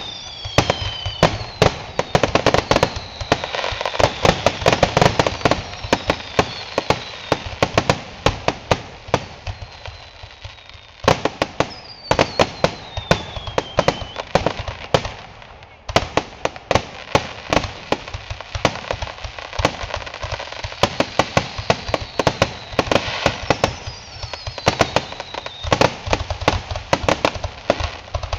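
Fireworks finale: a dense, rapid barrage of bangs and crackling reports, with several whistling shells that fall in pitch. The barrage eases briefly twice before building again.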